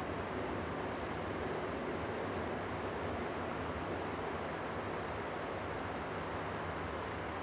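Boeing 737-500's CFM56-3 turbofan engines at taxi power: a steady, even rushing rumble with a low hum underneath.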